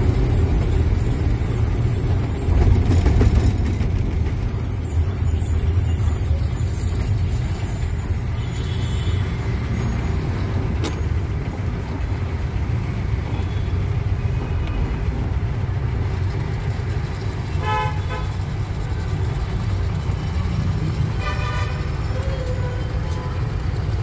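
Steady low rumble of a truck's engine and road noise heard inside the cab while driving, with a horn honking briefly about two-thirds of the way through and again a few seconds later.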